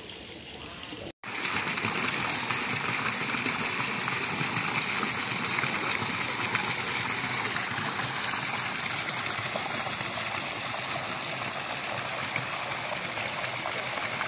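Water jets arcing into a swimming pool, splashing steadily onto the surface. Before a cut about a second in there is a quieter trickle of pond water.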